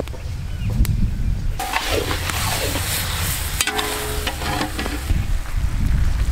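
Boiled spaghetti tipped from a metal basin into a large iron kadai of hot chicken tomato sauce, sizzling and hissing for a couple of seconds about a second and a half in, while a long metal spatula scrapes and stirs in the pan with light clicks. A low rumble runs underneath.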